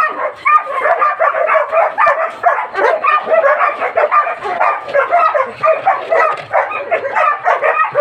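A pack of huskies barking and yelping together at feeding time, many short calls overlapping without a break.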